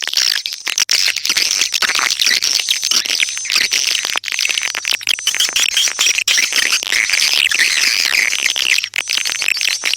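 Swiftlet call recording of the kind played to lure swiftlets into a nesting house: a dense, unbroken chorus of high twittering chirps, with a faint low hum underneath from about a second in.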